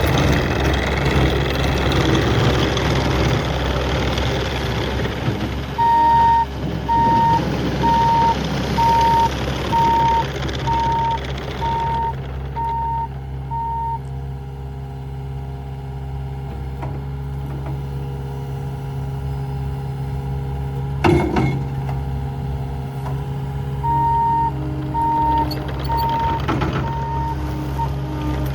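2019 Cat 279D compact track loader's diesel engine running, working harder for the first dozen seconds and then settling to a steadier idle. Its backup alarm beeps a little faster than once a second in two spells while it reverses, and there is one sharp knock about two-thirds of the way through.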